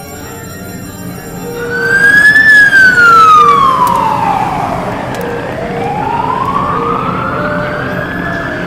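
A wailing siren, one slow tone that rises, falls over about three seconds and rises again, like a fire-engine siren. It starts about two seconds in, after a short stretch of music.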